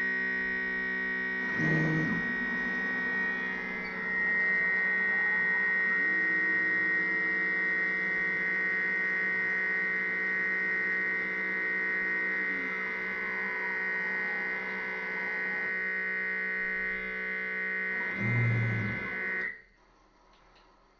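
Planetary-geared stepper motors of a six-axis robot arm whining as the joints move, a chord of steady high tones with a few pitches sliding up or down as the motors speed up and slow down. The whine cuts off near the end as the arm stops.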